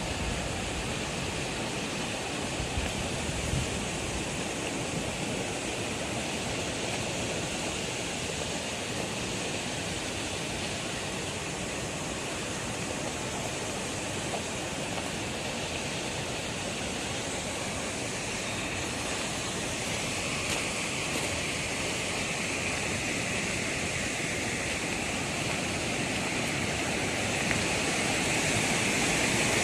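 Waterfall: a steady rush of falling water that grows louder over the last few seconds.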